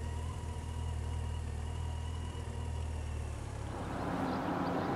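Motorcycle engine running steadily at low road speed, heard from on board. About three and a half seconds in, the engine note gives way to a steady rushing outdoor noise.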